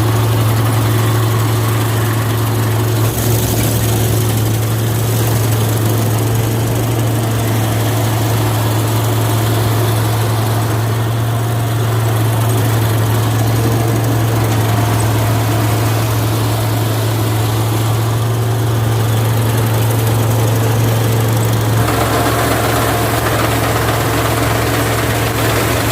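Diesel engine of a rice harvesting machine running steadily under load. About 22 seconds in, its sound turns fuller and rougher.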